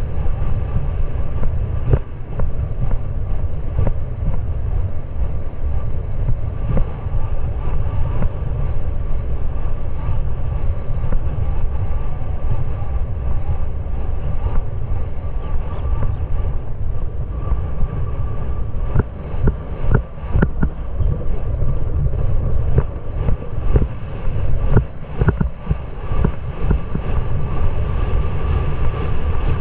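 Wind buffeting the microphone of a helmet-mounted GoPro on a galloping racehorse: a loud, steady low rush with scattered thuds and clicks, and a faint steady whine underneath.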